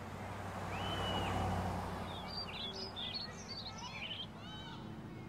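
Small birds chirping outside in a quick cluster of short, high calls, over a low steady hum, with a swell of rushing noise that rises and fades about a second in.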